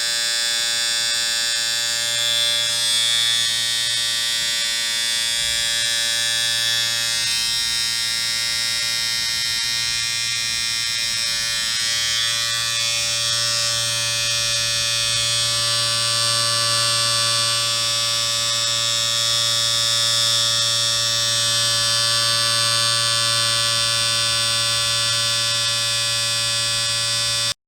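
Electric shaver running, a steady high buzz with no change in pitch, switched on at the start and cut off at the end.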